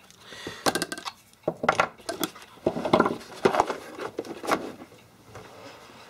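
Clicks, knocks and rattling from a hard plastic tool kit case as a coax cable stripper is worked out of its tight molded slot, in irregular clusters that stop about a second and a half before the end.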